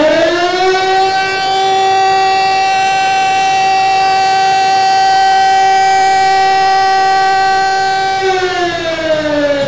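Factory siren winding up quickly to one steady, loud held tone, then gliding down in pitch near the end as it winds down: the works siren sounding as workers stream out of the plant.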